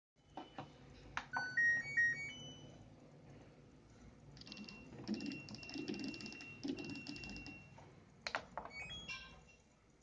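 LG front-loading washing machine's control panel: a button click, then its short electronic power-on tune of stepped beeps. The cycle selector dial is then turned, clicking rapidly through its positions under a held beep tone. Near the end come a few more clicks and short beeps from button presses.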